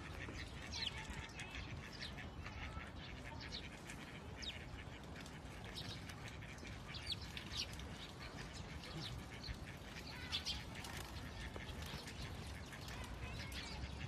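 Birds calling, with many short, high chirps scattered throughout, over a steady low rumble.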